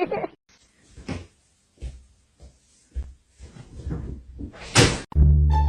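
A few scattered light knocks and thumps, then one louder bang about five seconds in, like a cupboard or door knocking shut; music with plucked strings starts right after it.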